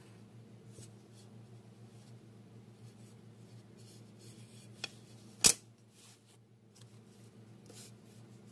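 Faint rustling of a hand and pencil moving over drawing paper against a steady low hum, with a small tick about five seconds in and a sharp, loud knock half a second later.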